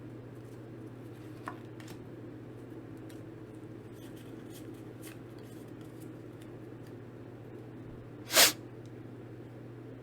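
Faint handling of Pokémon trading cards and their foil booster pack over a steady low hum, with small clicks and one short, loud swish about eight seconds in.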